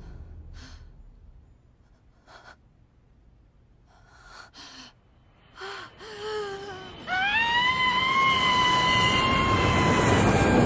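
A few short, breathy gasps. About seven seconds in, a long high-pitched held tone swells in over a rising rushing noise.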